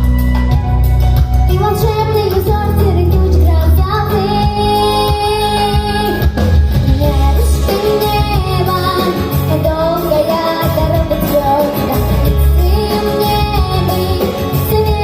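A young girl singing a song solo, holding long wavering notes, over loud instrumental accompaniment with a strong bass.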